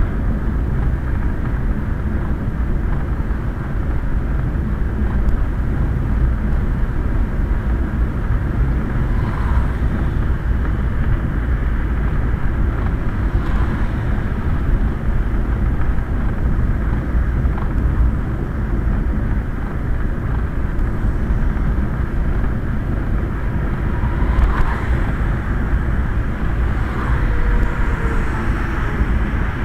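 Steady low rumble of a Quest velomobile rolling along a wet road in the rain, heard from inside its shell under the closed hood.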